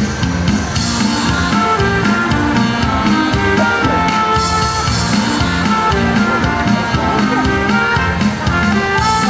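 Music with a steady beat: drums under held instrument notes, loud and continuous.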